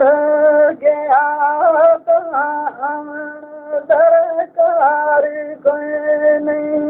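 A man's solo voice singing a Gojri bait, a folk verse, in long held notes that waver and break off every second or so.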